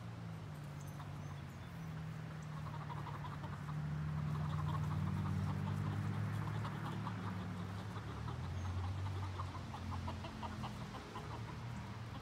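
A flock of chickens clucking in quick, soft, busy runs that pick up a couple of seconds in, over a steady low hum that shifts in pitch.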